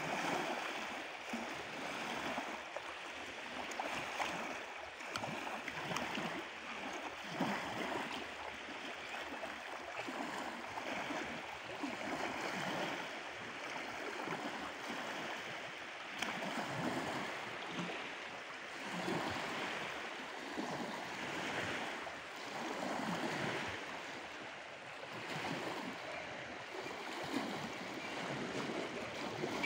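Small waves lapping at the shore: a steady wash of water that swells and eases every second or two.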